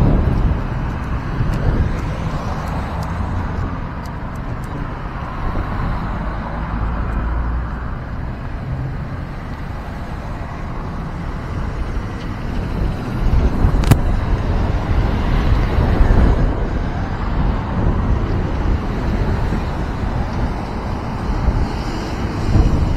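Outdoor street sound: a heavy, uneven rumble of wind buffeting the microphone over passing road traffic, with one sharp click about two-thirds of the way through.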